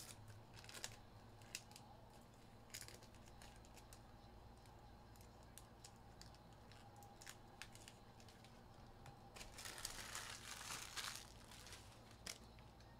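Faint crinkling and tearing of plastic wrapping as trading-card packs are opened, with scattered light clicks and taps. The longest, loudest stretch of crinkling comes about ten seconds in and lasts over a second.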